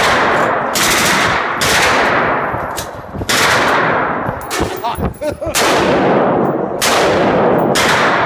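Gunshots in an indoor shooting range: about eight loud reports at uneven spacing, roughly one a second with a longer gap near the middle, each ringing on in the hall.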